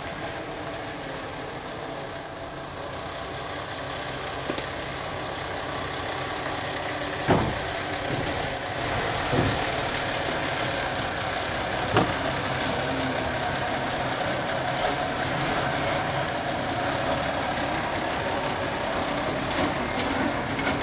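Fire engine's diesel engine running steadily as the truck drives up and manoeuvres, with a few sharp short sounds about seven, nine and twelve seconds in.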